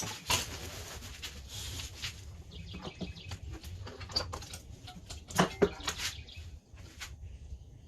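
Scattered clicks and knocks of things being handled, with a rushing, rustling noise over the first couple of seconds and two louder knocks about five and a half seconds in.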